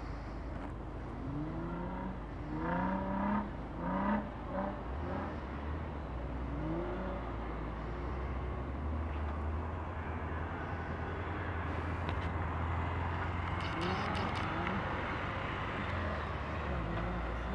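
Distant 2012 Jeep Wrangler Rubicon's 3.6-litre Pentastar V6 with a Magnaflow exhaust, revving in several quick rising surges as it climbs the dune, then running on more evenly with a few softer revs. A steady low rumble sits underneath from about five seconds in.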